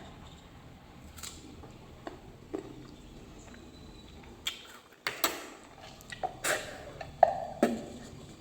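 Scattered light clicks and knocks of cutlery and a bowl being handled while preparing food, with a cluster of sharper knocks in the second half.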